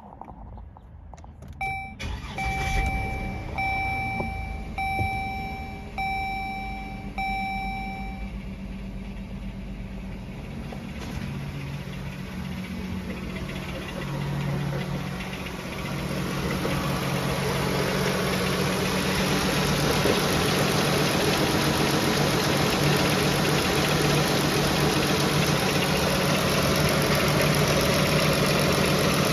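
Dodge Journey's Pentastar V6 started about two seconds in, then idling with a knock, more than likely a worn piston wrist pin. A dashboard chime beeps about once a second for the first several seconds. The engine sound grows louder in the second half.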